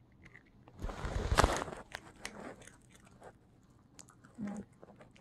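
A Yorkshire terrier crunching a hard dog biscuit, with one loud crunching bite about a second in, then scattered small crunches and clicks as it chews.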